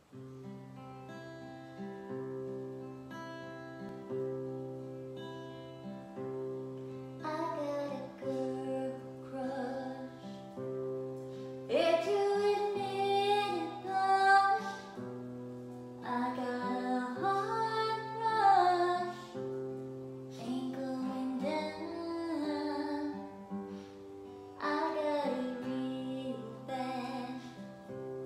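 Acoustic guitar played alone, then a woman starts singing over it about seven seconds in.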